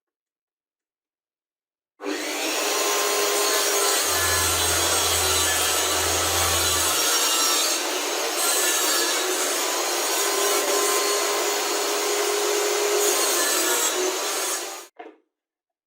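Continuous rough scraping noise of a tool working material for a DIY sharpening stone. It starts abruptly about two seconds in, with a low hum underneath for a few seconds, and stops sharply near the end, followed by a short knock.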